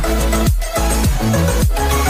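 Electronic dance music with steady bass notes and a falling bass sweep that repeats about once a second.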